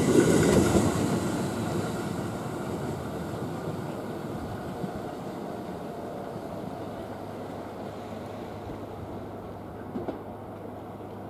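A JR West 521 series electric train pulling away past the platform, its motor and wheel noise loud at first and fading steadily as it goes, leaving a low steady hum.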